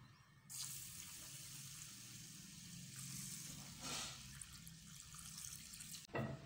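Water poured in a thin steady stream onto raw rice in a pot to soak it, a faint continuous splashing hiss that begins about half a second in. A short knock sounds near the end.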